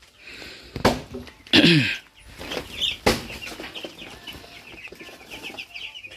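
A brood of baby chicks, one to two weeks old, peeping in a dense run of short, high chirps. A few louder calls and a sharp knock come in the first three seconds.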